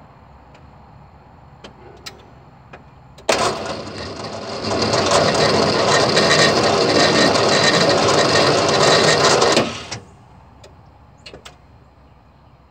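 Vehicle engine cranked by the starter for about six seconds, getting louder about a second in, then cutting off suddenly without the engine catching: it turns over but will not start.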